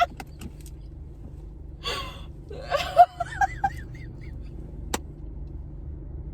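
Steady low hum of a car cabin with a woman laughing briefly about two to three seconds in. A single sharp click comes near five seconds in.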